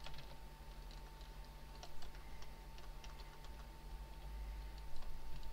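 Computer keyboard keystrokes and mouse clicks, a scattering of irregular short clicks, over a faint steady hum.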